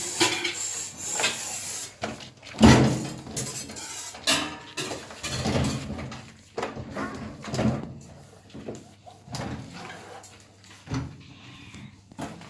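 Sponge scrubbing the inside of a microwave oven: irregular rubbing strokes with a sharp knock about three seconds in.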